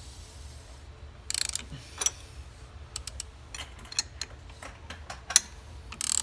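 Ratchet wrench on the 18 mm bolt of a flywheel puller, clicking in quick, irregular clicks, with a brief rasp of the ratchet about a second in and again near the end.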